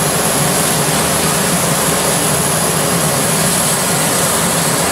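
Jet engines running on an aircraft carrier's flight deck: a loud, steady roar with a high whine over it.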